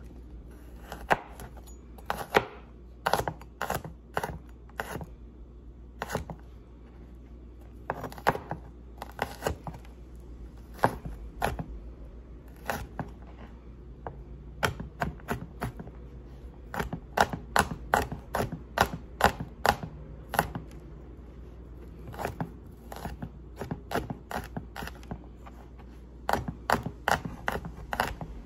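Garlic cloves chopped with a cleaver on a cutting board: sharp knocks of the blade on the board, coming in quick irregular runs with short pauses between.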